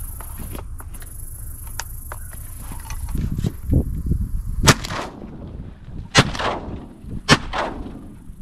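Three shotgun shots about a second and a half, then a second, apart, over a steady low wind rumble on the microphone.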